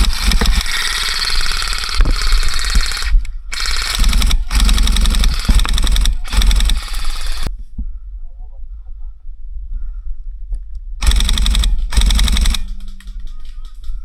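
Airsoft guns firing long strings of rapid full-auto shots, with brief breaks at about three and a half and four and a half seconds in, stopping at about seven and a half seconds, then one more burst of about a second and a half near the end.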